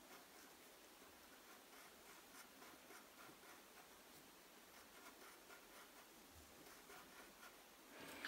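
Graphite pencil scratching faintly on paper in a string of short strokes, drawing a zigzag pattern.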